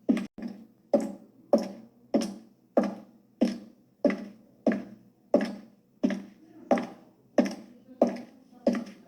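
High-heeled shoes walking on a hard floor: steady, evenly paced heel clicks, about three every two seconds, each ringing briefly.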